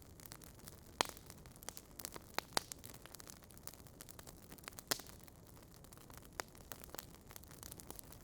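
Logs burning in a fireplace, crackling: scattered sharp pops, the loudest about a second in and near five seconds, over a soft steady hiss of the fire.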